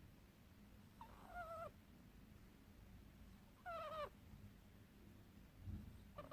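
Sleeping ferret snoring: a short, wavering, whistling snore of about half a second, coming twice and starting again right at the end, roughly every two and a half seconds.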